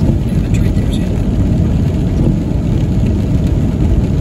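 Steady low rumble of a car driving on a wet street, heard from inside the cabin.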